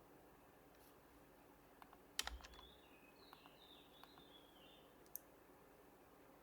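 Sparse, quiet keystrokes on an HHKB Professional Hybrid Type-S keyboard with Topre switches. A quick run of a few keys comes a little over two seconds in and is the loudest part, with single key taps scattered around it.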